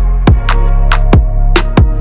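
Electronic background music: steady held synth chords with a beat of drum hits, about three a second, each sweeping down in pitch.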